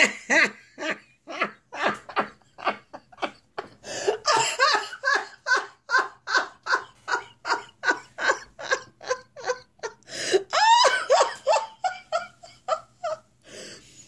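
A person laughing hard and long: an unbroken run of short 'ha' pulses, about three a second, rising to a higher, squealing stretch about ten and a half seconds in.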